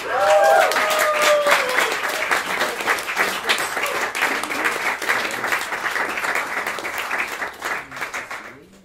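Small audience applauding and cheering after a song, with a whooping voice that falls in pitch in the first second and a half. The clapping dies away near the end.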